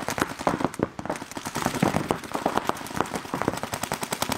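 Paintball markers firing fast, overlapping strings of shots, a dense irregular popping that keeps up throughout.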